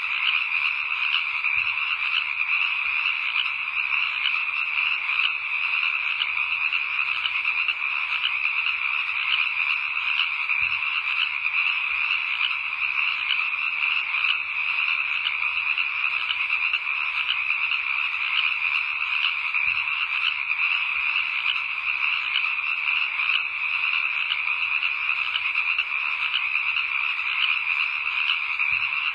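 A steady, dense chorus of calling frogs, a fast even pulsing that runs on without a break.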